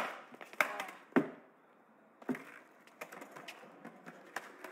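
Skateboard on concrete: a sharp wooden pop of the tail as the trick starts, then three more hard clacks of the deck and wheels hitting the concrete over the next two seconds, with lighter knocks near the end.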